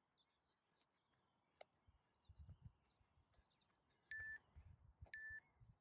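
Two short electronic beeps of the same pitch, one second apart near the end, from a workout interval timer counting down the last seconds of an exercise interval. Faint low thuds are heard under it.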